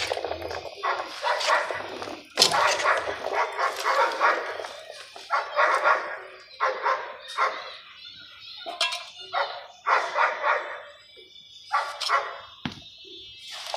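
A dog barking again and again, in short bursts with brief pauses between them.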